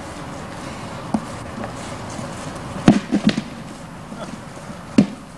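Football being kicked on grass: a handful of short, dull thuds, the loudest about three seconds in with two quicker ones right after it, and another near the end, over steady camcorder hiss.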